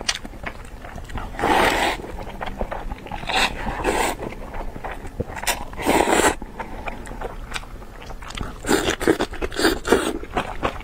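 Close-up eating sounds: irregular biting, chewing and scraping. There are louder bursts every couple of seconds, several coming close together near the end.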